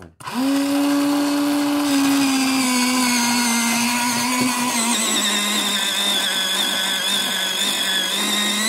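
X-ACTO Mighty Mite electric pencil sharpener starting up just after a pencil is pushed in, its motor running with a steady whine while the cutter shaves the pencil. The pitch sags gradually over the first few seconds as pressing the pencil in loads the motor.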